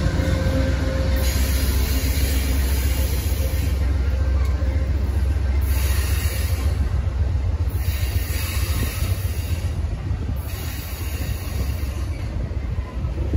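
Amtrak passenger train of bilevel Superliner cars rolling past at close range: a steady low rumble of wheels on rail, with a high hiss that rises and falls several times over it.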